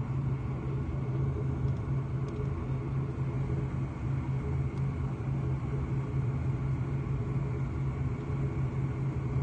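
Airplane cabin noise as the plane rolls along the ground after landing: a steady low rumble of engines and wheels with a constant deep hum.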